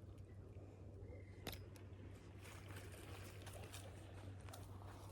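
Near silence: faint crackling rustle over a steady low hum, with one sharp click about a second and a half in.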